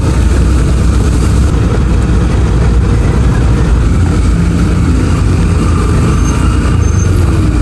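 Heavy road traffic on a wet street: a loud, steady rumble of vehicle engines mixed with tyre noise on the rain-soaked pavement.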